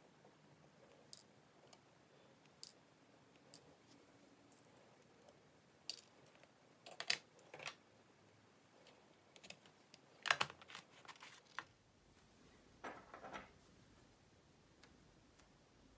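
Faint, scattered small clicks and taps of tweezers, watch parts and a plastic parts box being handled on a bench, with short clatters about seven, ten and thirteen seconds in.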